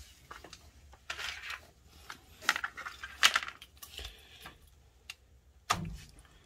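Small plastic push-fit tube fittings (a T-fitting and a ball valve) clicking and rustling as they are handled and held against the purifier's tubing: a scattering of light sharp clicks.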